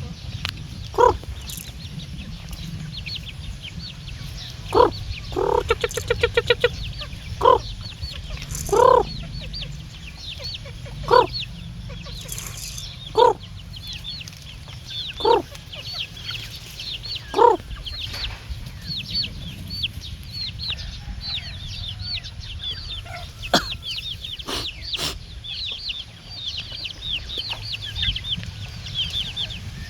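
Chicken clucking: single short clucks every two seconds or so, with a quick run of clucks about six seconds in. A constant high-pitched chirping runs underneath.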